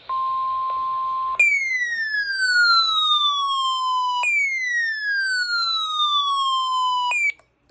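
NOAA Weather Radio receiver sounding its alert for a special marine warning: a steady beep for about a second and a half, then two long sweeps falling in pitch, each about three seconds, ending in a short chirp.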